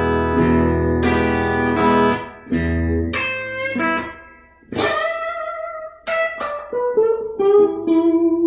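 Suhr Standard Plus electric guitar being played: ringing chords for about the first three seconds, then picked single-note lead lines, with notes bent in pitch near the end.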